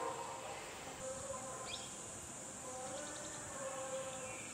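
Outdoor ambience of steady high-pitched insect buzzing, with faint distant voices and one short bird chirp nearly two seconds in.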